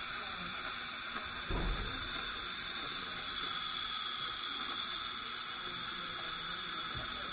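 Dental saliva ejector (low-speed suction) held in the mouth, running with a steady hiss, with a brief low bump about a second and a half in.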